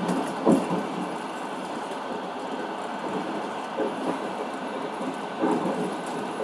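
Moving passenger train heard from inside the carriage: a steady running rumble with a few louder knocks of the wheels over rail joints, the strongest about half a second in.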